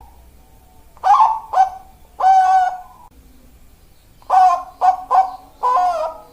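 Zebra dove (perkutut) cooing in two phrases of short, ringing notes: three notes, a pause, then four notes.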